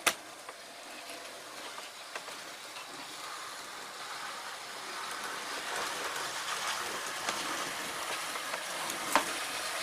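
OO gauge model locomotive hauling two coaches up an incline: a steady whirr of its small electric motor and wheels running on the track, growing gradually louder, with one sharp click near the end.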